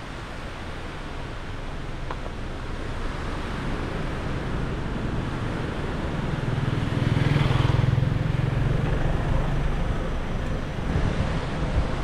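A motor scooter comes up the road and passes close by, its engine hum swelling to its loudest about seven to eight seconds in and then fading, over a steady rush of wind on the microphone.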